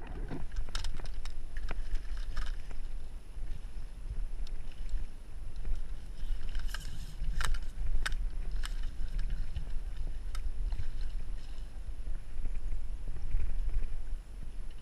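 Steady low rumble of wind buffeting the camera microphone. A few sharp clicks come in the middle.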